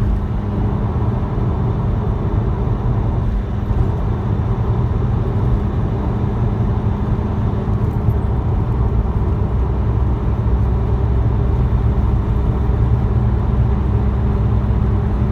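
Vauxhall Corsa CDTI diesel running with a steady low droning hum, the unexplained noise the owner is asking about; its cause is not known.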